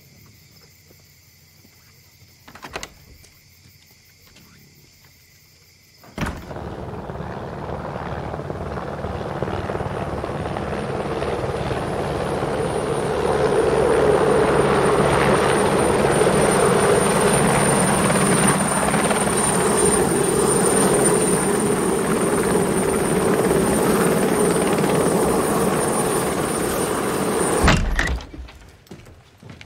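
After a few quiet seconds with a single click, the rotor and engine of a small helicopter come in suddenly. They grow louder for several seconds, then run steadily with a thin high whine, and cut off abruptly near the end.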